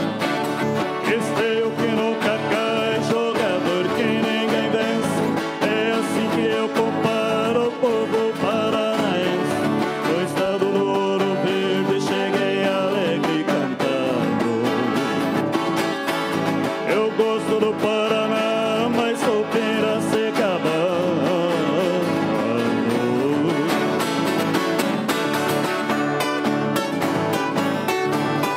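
Live Brazilian country music: a ten-string viola caipira picking a melody over steady acoustic guitar strumming, with voices singing at times.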